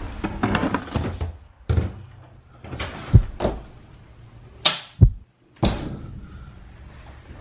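A door being worked: a series of separate knocks, clicks and thuds, about one every second, with no speech.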